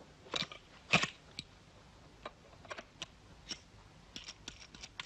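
AR-7 folding sniper's rifle being assembled by hand: a series of sharp, unevenly spaced clicks as its parts snap into place, the loudest about a second in.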